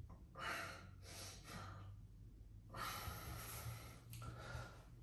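A man breathing out heavily: a few breathy exhales, the last and longest from about three seconds in.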